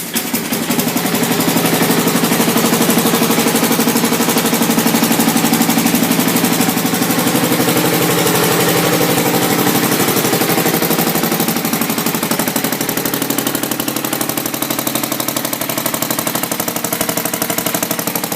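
Garden tractor engine running steadily just after a fresh start, with a fast, even exhaust pulse.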